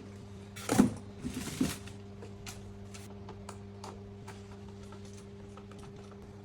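A small electric motor humming steadily, with scattered clicks, a loud brief rattle about a second in, and a noisier scrape just after it.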